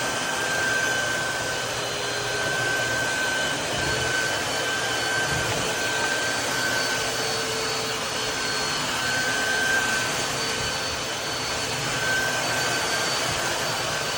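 Tineco Floor ONE S5 Steam wet-dry vacuum mop running in auto mode: a steady rush of suction with a high motor whine over it, swelling and dipping slightly in loudness.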